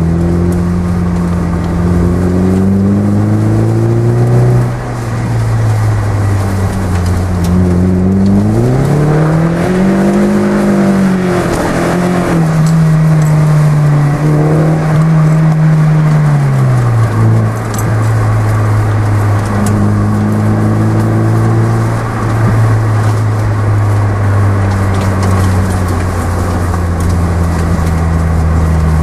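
Toyota Yaris T Sport's four-cylinder engine heard through a custom exhaust while driving. The note rises and falls with the throttle and drops sharply a couple of times, then settles into a steady drone for the last third.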